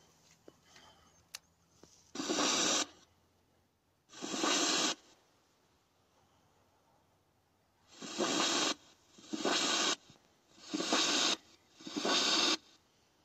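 Spirit box, a ghost-hunting radio-sweep device, putting out six short bursts of radio static hiss, each under a second long, at uneven gaps.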